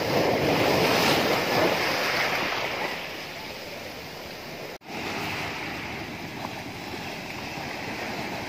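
Sea waves breaking against shoreline boulders and surf washing over the rocks, loudest in the first two seconds. The sound cuts out sharply for a moment a little past halfway.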